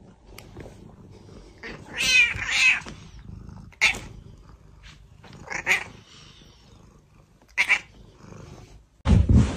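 Domestic cat meowing: a drawn-out, wavering meow about two seconds in, then three short calls spread through the rest. Near the end a louder low noise cuts in.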